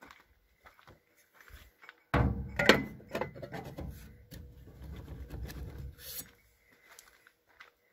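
Rubbing and scraping as the tractor's air-intake pre-cleaner cap is gripped and twisted on its intake pipe, with a couple of sharp knocks. It starts suddenly about two seconds in and stops about six seconds in, with light clicks before and after.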